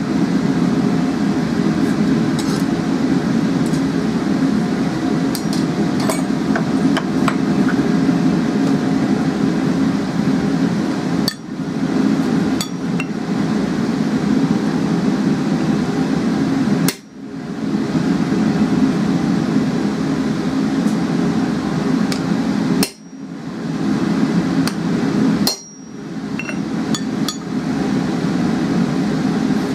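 A hammer strikes the hot steel hook on the anvil in scattered blows and clinks, over the steady roar of a gas forge. The roar drops out briefly several times.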